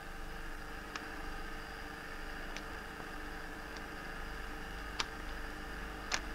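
Faint steady hiss and hum of an old film soundtrack, with a few sharp, irregularly spaced clicks, the loudest about five, six and seven seconds in.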